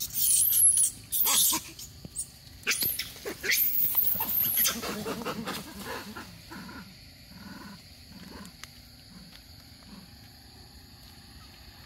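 Macaque screaming in loud, shrill cries that sweep up and down in pitch, with the adult monkey holding down the young one. The cries fade about five seconds in to a few softer low calls. After that only a faint steady high hum remains.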